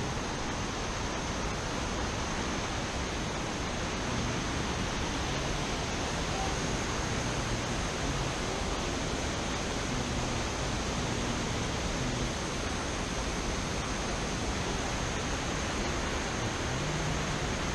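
Steady rush of water pouring over a wide, low waterfall and through shallow creek rapids.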